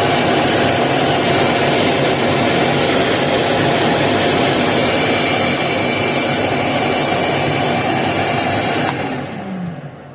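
Craftsman CMXEVBE17595 16-gallon, 6.5 peak HP wet/dry shop vac running steadily with a rush of air and a thin high whine, then switched off about nine seconds in, its motor winding down with falling pitch.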